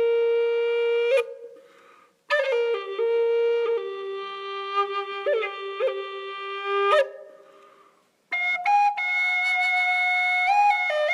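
Native American flute playing slow phrases of long held notes with short slides between them, in three phrases, the last pitched higher. Each phrase trails off for about a second in the canyon's echo before the next begins.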